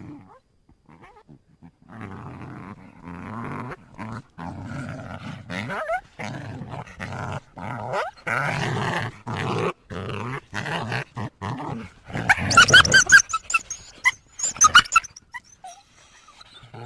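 Wolf growling and snarling in a run of short, rough bursts, then a cluster of brief high-pitched cries near the end.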